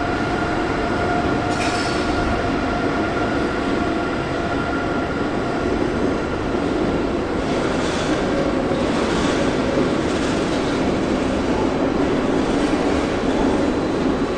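Electric train rolling through the station: a steady rumble of wheels on the track with light wheel squeal and clicks.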